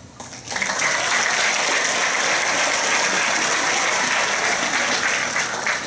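Audience applauding, starting about half a second in and stopping near the end.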